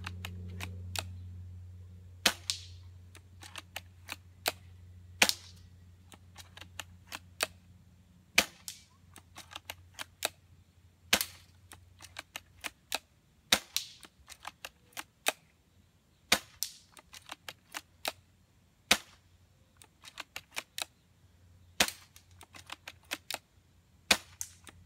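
Crosman GF529 spring-powered bolt-action airsoft sniper rifle firing repeatedly: about nine sharp shots, roughly one every three seconds, with quieter clicks of the bolt being worked between shots.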